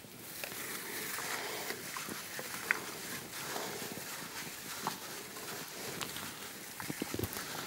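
Wet squelching and the crinkle of plastic gloves as hands toss raw chicken drumsticks in an oily marinade in a glass dish, with a few sharp clicks along the way.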